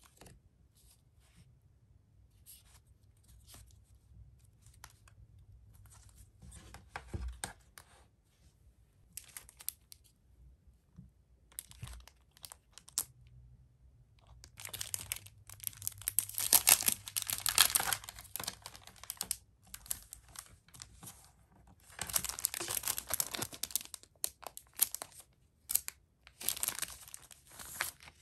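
Crinkling and rustling of a thin plastic packet of clear polypropylene sleeves as it is handled and opened, in two long loud stretches, the first from about halfway in and the second near the end. Before that, only soft, scattered taps and rustles of card and paper.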